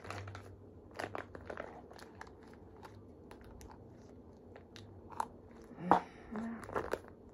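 Plastic relaxer sachet crinkling and crackling as it is squeezed and worked by hand to push out the last of the cream, with one sharp knock a little under six seconds in.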